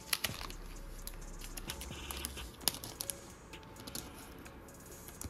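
Trading cards and pack wrappers being handled by hand: scattered soft clicks and light crinkling rustles.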